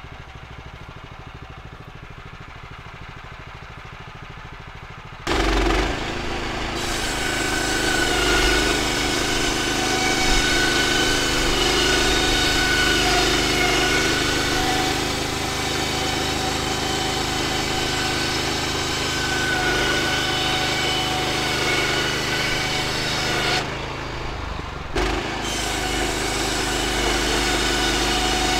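Woodland Mills HM126 band sawmill: its small gasoline engine idles, then is suddenly throttled up about five seconds in, and the running band blade saws lengthwise through a log as the head is pushed along it, with a steady engine note and a high blade whine. The sound eases briefly near the end, then picks up again.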